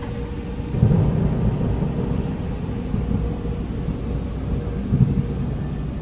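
A low rumble, heard from inside a slowly moving car, swelling about a second in and again around five seconds in.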